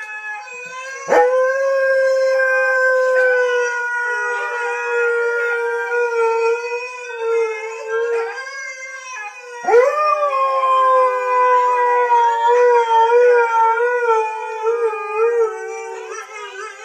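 Huskies howling, a pet husky joining in with howls from huskies on a television: two long howls, the first starting about a second in and slowly falling in pitch, the second starting about ten seconds in and wavering near its end.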